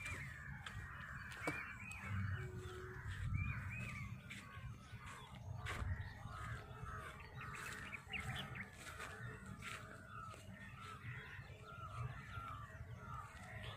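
Several birds calling over one another: short, repeated, arching calls, with a low rumble underneath.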